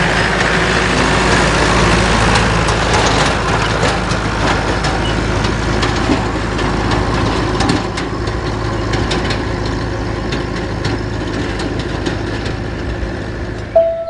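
Farm tractor's diesel engine running steadily as it drives along, with many light clicks and rattles over the engine note.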